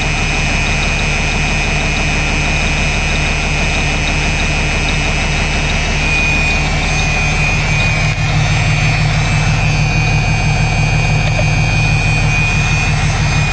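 Heavy diesel truck engine running steadily, with a thin steady high whine over it. About eight seconds in, the low engine note gets stronger.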